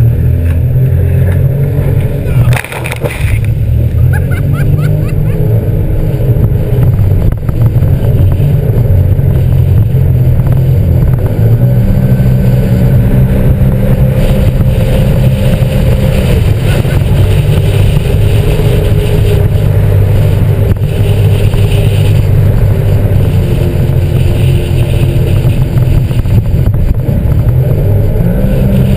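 Sea-Doo GTX 260 iS Limited personal watercraft running at speed, its supercharged Rotax three-cylinder engine and jet drive holding a steady drone, heard through a camera mounted on the craft. The sound drops briefly about three seconds in, then runs on steadily.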